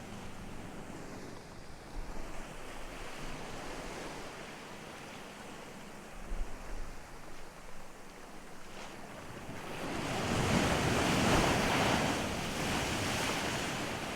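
Ocean surf washing onto a beach, with one wave breaking louder about ten seconds in. Wind gusts buffet the microphone now and then.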